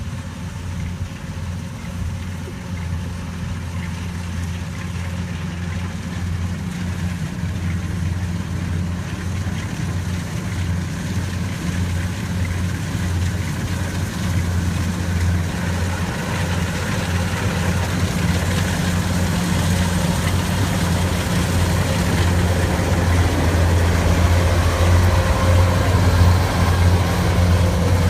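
Rice harvesting machine's engine running steadily with a low hum, growing gradually louder.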